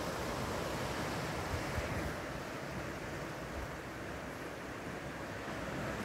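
Sea water washing against shore rocks, a steady rush of surf, with wind gusting on the microphone; the hiss softens about two seconds in.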